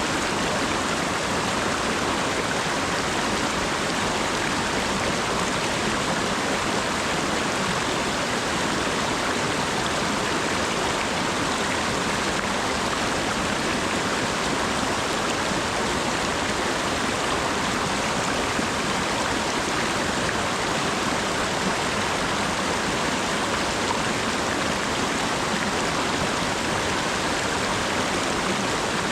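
Steady rain falling, an even hiss of water with no separate drops or other sounds standing out.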